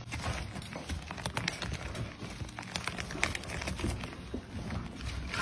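Irregular crackling and small crumbling clicks of a cast layer of pale material peeling away from a carved floral relief, over a low rumble.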